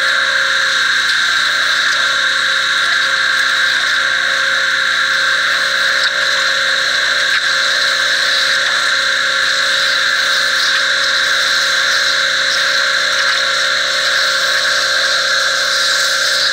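A 3100 PSI gas pressure washer runs steadily under load. Its zero-tip straight jet hisses into the soil as it cuts a trench.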